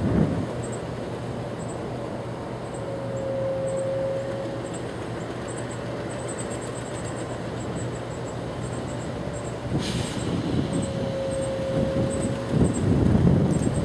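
Alco diesel locomotive engine running at idle with a steady low drone. A clear steady tone comes in twice for about two seconds each. There is a sharp crack about ten seconds in, and the low rumble swells louder near the end.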